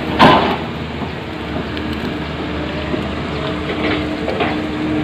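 Caterpillar 320D2 hydraulic excavator running steadily, with a loud metallic clank just after the start and two fainter knocks near the end. A steady engine note holds from about halfway through.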